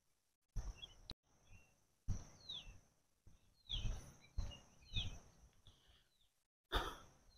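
Faint birdsong: short, high chirps sweeping downward in pitch, heard three or four times, over a thin steady high-pitched hum and a few soft low thumps.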